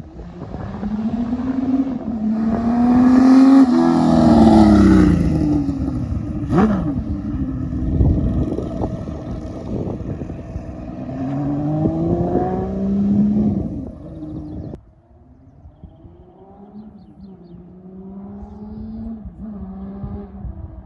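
Benelli 750 Sei's 747 cc inline six-cylinder engine through a 6-into-1 exhaust: the motorcycle approaches, passes close by with its pitch falling, then accelerates away up through the gears. A sharp click comes about six and a half seconds in. After a sudden drop in level about fifteen seconds in, the engine is fainter and still pulling through the gears.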